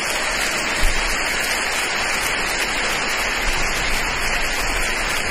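Audience applauding: a dense, even clatter of many hands that swells up as the music ends and then holds steady.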